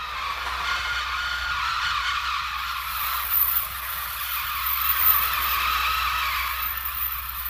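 Electronic bird sound effects made on a Mixtur-Trautonium: a steady, dense whirring chatter, with a high hiss joining about three seconds in.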